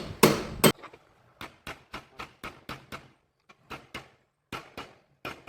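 Light hammer taps, about three or four a second with short pauses, after two louder knocks near the start, as a bearing or seal is worked into a tractor's rear axle assembly. A low steady hum cuts off under a second in.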